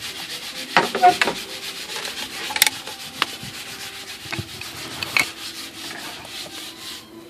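Plastic dashboard trim and parts being handled: steady rubbing and scraping, broken by several sharp clicks and knocks.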